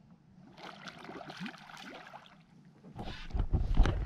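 Water splashing and lapping around a kayak. About three seconds in it gives way to louder low knocks and rumbling as the kayak and its camera are jostled.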